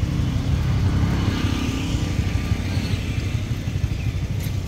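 An engine running steadily, with a low, rapid throb.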